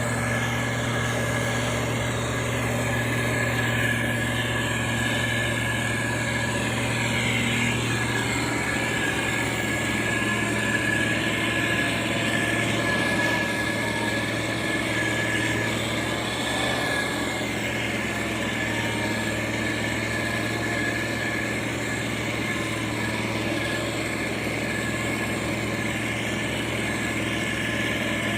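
Diesel engine of heavy road-building machinery running steadily, a constant low hum with a thin, high, steady whine over it.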